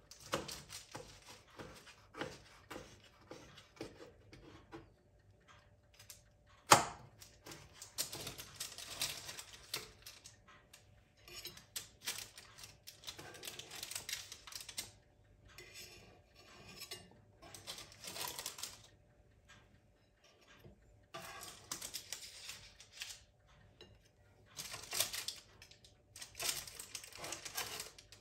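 Kitchen utensils clicking and scraping against dishes in repeated short spells, with one sharp knock about seven seconds in.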